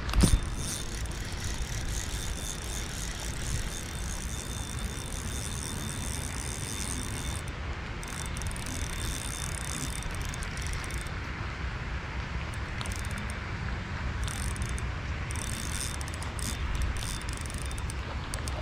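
Spinning reel being cranked, its gears giving a steady whir as line is wound in, with one sharp knock just after the start.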